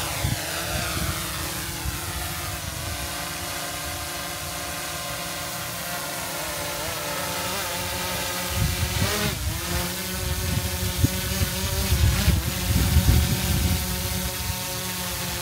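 DJI Air 3 quadcopter's propellers whining in flight: a stack of steady tones that falls in pitch over the first couple of seconds, then holds, with a brief dip about nine seconds in. A low rumble underneath grows stronger in the second half.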